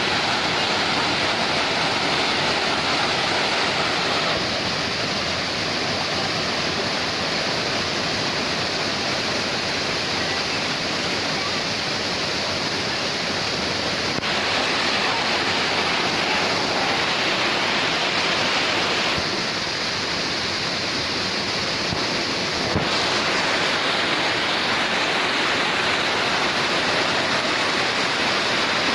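Waterfall rushing steadily, its noise changing tone abruptly a few times, with a brief click about two-thirds of the way through.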